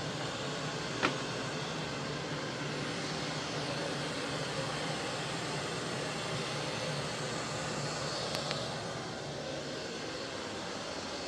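Robot vacuum-mop running: the steady whir of its suction fan and brushes, with a sharp click about a second in.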